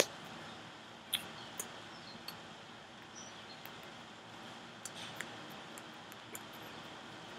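Scattered soft taps and slaps of hands meeting during sign language, a few sharp ticks spread unevenly over a steady background hiss.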